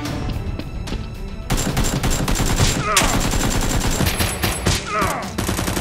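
Rapid automatic gunfire sound effects, a dense stream of shots starting about a second and a half in, dubbed over the blaster firing and laid over background music.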